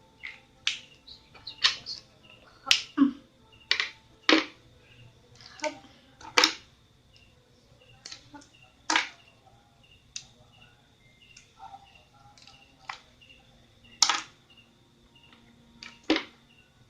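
Plastic Faber-Castell Connector felt-tip pens clicking sharply at irregular intervals, about a dozen times, as they are handled and their caps snapped onto one another.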